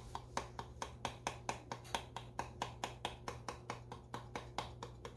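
Shaker box of ground pepper being shaken over raw catfish fillets on a plate: a soft, very regular ticking of about six strokes a second as the seasoning sprinkles out, over a steady low hum.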